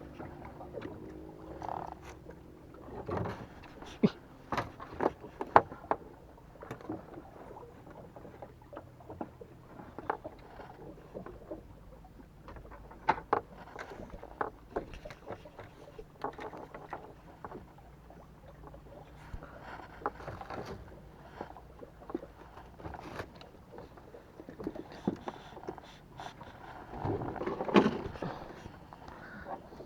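Irregular knocks, taps and light scrapes of gear being handled aboard a small fishing boat, clustered at about four to six seconds in and again near the end.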